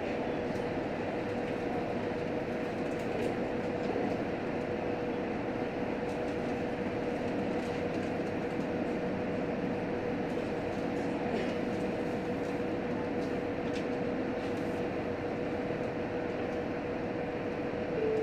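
Running noise heard inside a JR Hokkaido H100 diesel-electric railcar under way: a steady rumble of wheels on rail, with a steady tone from the drive.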